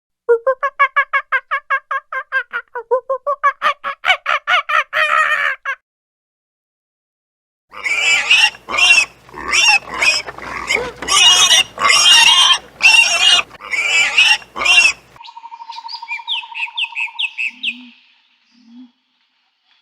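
A sequence of different animal calls. First comes a fast run of pitched calls, about four or five a second, lasting nearly six seconds. After a pause, loud harsh squawking or squealing calls run for about seven seconds, followed by fainter bird-like chirps near the end.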